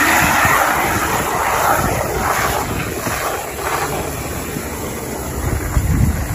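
Garden hose spraying water into a plastic bucket of soapy water, a steady splashing hiss that churns up suds. It is brightest in the first couple of seconds and softer after that, with wind rumbling on the microphone underneath.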